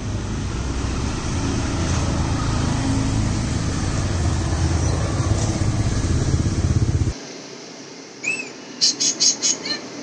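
A steady low outdoor rumble for about seven seconds that cuts off abruptly. After a short lull, an Alexandrine parakeet gives one short call, then a quick run of sharp, high chirps near the end.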